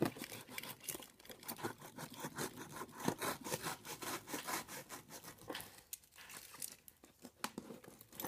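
Duct tape on a cardboard shipping box being scratched, picked at and torn by hand: a rapid run of scratchy, crackling rasps that thins out after about five seconds into a few scattered scrapes.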